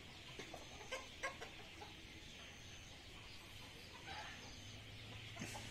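Domestic chickens clucking faintly, a few short calls over a steady high hiss.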